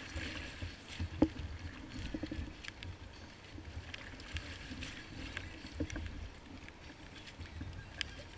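Choppy sea water sloshing and splashing against a kayak hull under a steady low rumble. Scattered clicks and knocks run through it, with one sharp knock about a second in.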